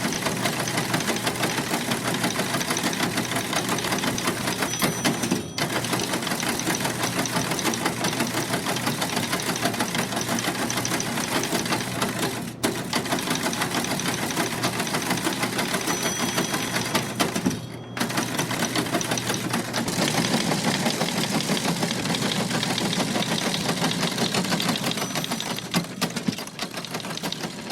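Vintage office typing machine clattering in a rapid, continuous run of key and type strikes, with short breaks about 5, 12 and 18 seconds in.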